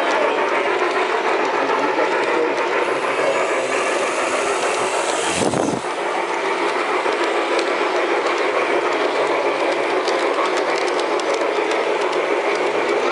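Steady clattering rattle of an LGB garden-scale model train's wheels and gearing rolling over the track, picked up from on board the moving car. About five seconds in, a short whoosh with a deep rumble of air on the microphone as the small RC helicopter lifts off the car.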